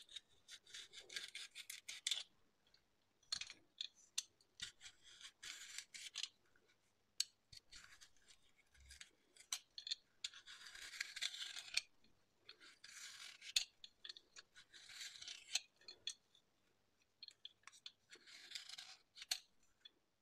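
Vegetable peeler scraping thin strips of skin off a raw white asparagus spear: faint, repeated scraping strokes with short pauses between them.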